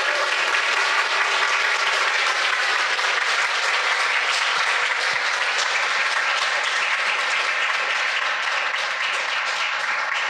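Audience applauding: a steady round of many hands clapping.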